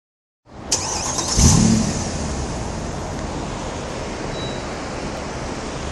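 Mercedes-Benz ML63 AMG's 6.2-litre V8 exhaust starting up: a sharp click, a short loud flare about a second and a half in, then a steady idle.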